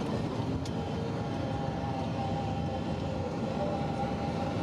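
Steady road and engine noise from inside a moving car, with a faint held tone above the rumble.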